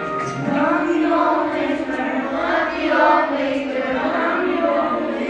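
A group of schoolboys singing together in chorus, with long held notes.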